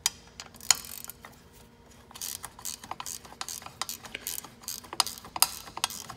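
Hand ratchet wrench clicking in quick runs of strokes as a nut on a truck windshield wiper motor's linkage is backed off, with a brief pause about a second in.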